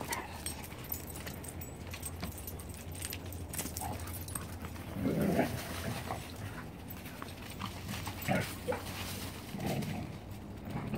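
A dog making a few short, low vocal sounds, the clearest about five seconds in and a few more near the end, over scattered light clicks and rustling.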